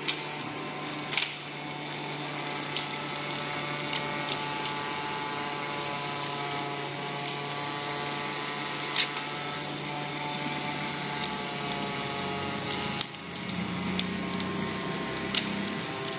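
Homemade bottle vacuum cleaner's small motor and fan running with a steady whine and hum, with many sharp clicks and ticks scattered through it. About thirteen seconds in the sound dips briefly and the pitch of the tones shifts.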